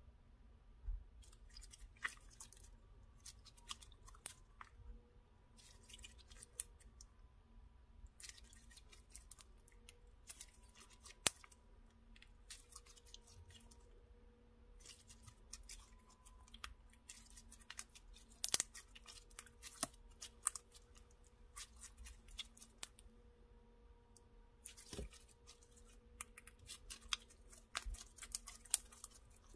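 Clear slime with fimo candy slices being squeezed and stretched by hand: sticky crackles, clicks and small pops of trapped air, coming in runs with short pauses between.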